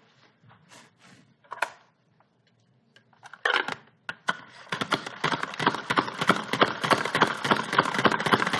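Salad spinner spinning wet spaghetti squash strands: a fast, continuous rattle of clicks from its spinning mechanism starts about five seconds in, after a few light knocks.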